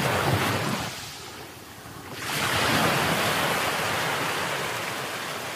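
Rough sea waves breaking and washing over boulders at the foot of a concrete sea wall. A lull comes about a second in, then a fresh surge of surf about two seconds in that slowly fades.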